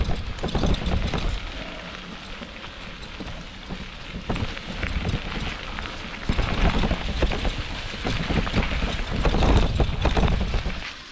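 Bicycle tyres rolling over a gravel forest road with a constant crackle and crunch, while wind buffets the microphone with a low rumble.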